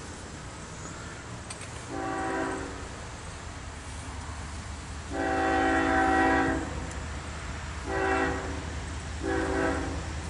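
Diesel locomotive horn on an approaching CSX freight train sounding four blasts: a short one about two seconds in, a longer one around five seconds in, then two short ones near the end. A steady low rumble of the locomotives runs underneath.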